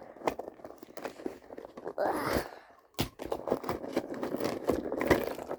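Fidget toys being pulled out of a small carry purse and set down: irregular clicks, knocks and scraping of handled plastic, with a longer rustling scrape about two seconds in.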